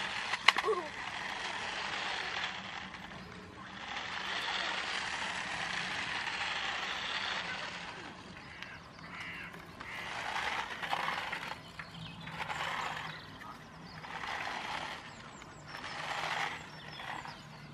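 Rustling and crinkling of paper and plastic kit parts being handled, in long stretches and shorter patches, with a sharp click about half a second in.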